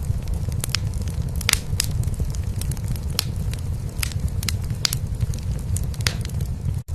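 Wood fire crackling in a fireplace, with frequent sharp pops, over a steady low rumble of a cat purring. The sound cuts out for an instant near the end.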